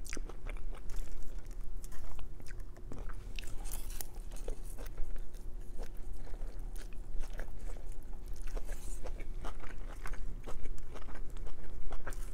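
Close-miked chewing and mouth sounds from eating chow mein: irregular wet smacks and small crunches, over a faint steady hum.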